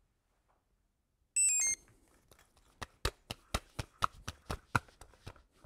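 A short run of four electronic beeps, each lower than the last, then a string of about ten light clicks and knocks, roughly three a second, as small parts are handled on a workbench.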